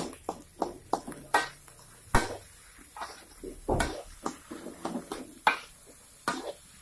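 Metal spatula knocking and scraping against a wok while stir-frying fried rice, in irregular clanks, the loudest about two and four seconds in.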